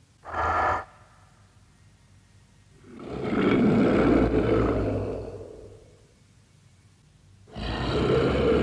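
Godzilla roar sound effects from Godzilla 1984: a short, pitched cry just after the start, then a long roar that swells and fades about three seconds in, and another long roar beginning near the end.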